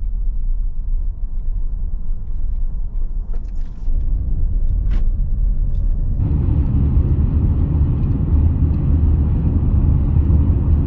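Low, steady rumble of a vehicle driving on a desert dirt track, heard from inside the cab, with a few light clicks and rattles. About six seconds in it steps up sharply to a louder, rougher road noise, as on a gravel road.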